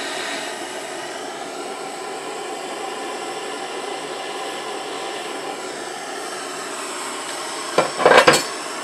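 Handheld blowtorch flame burning with a steady hiss. Near the end there is a brief, loud clatter.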